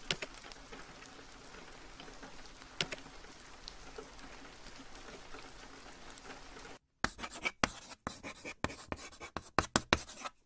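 Faint, steady rain ambience with an occasional sharp drop, which cuts off suddenly about seven seconds in. A quick run of uneven, scratchy scribbling strokes follows.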